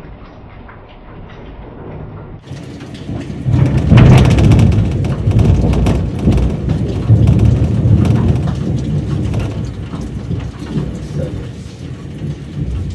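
Thunder following a lightning flash: quiet at first, then a low rumble builds about three seconds in and jumps to its loudest about four seconds in, rolling on for several seconds and slowly dying down. Rain falls throughout.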